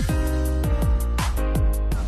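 Electronic music with a heavy beat: deep kick drums that drop in pitch under a sustained bass and held chords, with a sharp snare-like hit about a second in.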